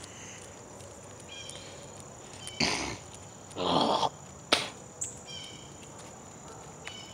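Outdoor ambience: a steady high insect drone with short high chirps repeating every few seconds. It is broken by two brief scuffing noises, about two and a half and three and a half seconds in, which are the loudest sounds, and a sharp click just after the second.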